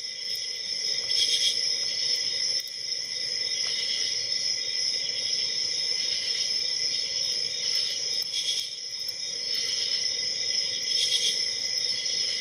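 Steady, high-pitched chorus of insects such as crickets, with a few faint scraping clicks from a hook pick working the pins of a padlock.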